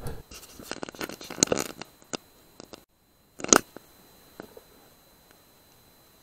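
Light rustles and clicks of an air rifle being handled and swung onto a target, with one sharper click about three and a half seconds in.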